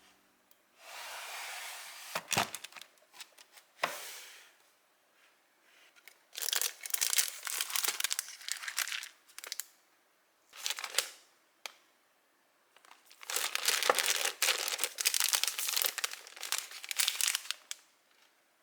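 Crinkling and rustling of something crinkly being handled, in several bouts of a few seconds each, with a few sharp clicks in between.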